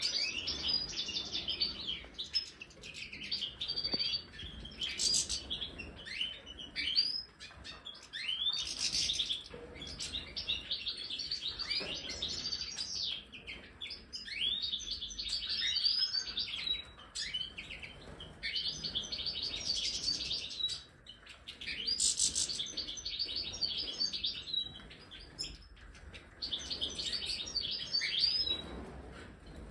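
A flock of European goldfinches twittering: many quick, overlapping chirps and song phrases with fast up-and-down notes, almost without a pause.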